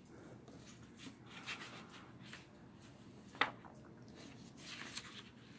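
Faint rustling and handling of a paper rule booklet as its pages are turned, with one short tick about three and a half seconds in.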